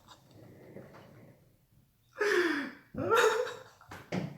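A young man laughing helplessly: breathy gasps, then two loud high-pitched bursts of laughter falling in pitch, about two and three seconds in.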